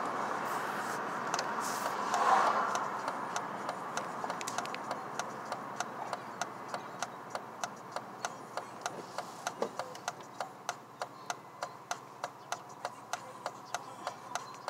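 Car's turn-signal indicator ticking evenly, about three clicks a second, starting about three seconds in. Underneath, road and engine noise inside the cabin fades as the car slows to a stop, with a brief swell about two seconds in as an oncoming car passes.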